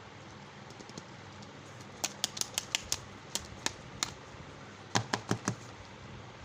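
A run of sharp clicks and taps from candy packaging being handled, about ten in quick succession, then a tight burst of five more a second later.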